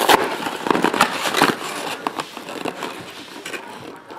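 Foil trading-card pack wrappers and cardboard being handled, crinkling and crackling, with a few sharper clicks in the first second and a half and softer rustling after.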